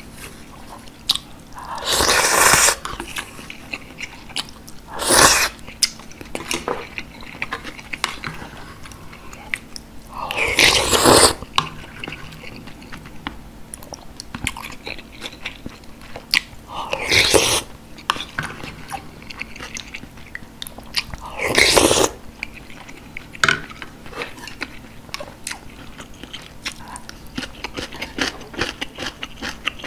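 Close-miked eating of beef short rib soup with rice: several loud slurps of broth, each lasting up to about a second, with wet chewing and small mouth clicks between them.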